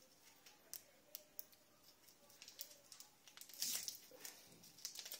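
Faint clicks and rustling from hands handling plastic syringes and medical packaging, with a louder rustle about three and a half seconds in.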